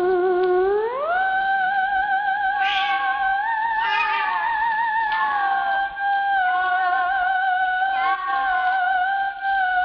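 Eerie warbling electronic tone, theremin-style, with a constant vibrato. About a second in it glides up an octave and then holds, with brief hissy bursts near the middle.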